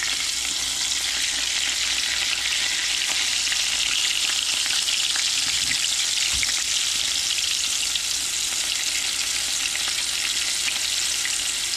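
Biscuit-dough cherry hand pies frying in vegetable oil in a cast-iron skillet: a steady sizzle with fine crackling.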